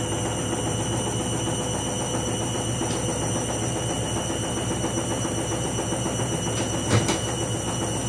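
Washing machine running a spin cycle that the owner calls dodgy, with the load full of suds: a steady mechanical drone, with a single knock about seven seconds in.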